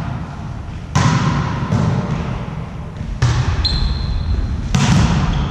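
A volleyball being struck during a rally, four sharp hits echoing in a sports hall, about a second in, near the middle and near the end, with a brief high squeak in between.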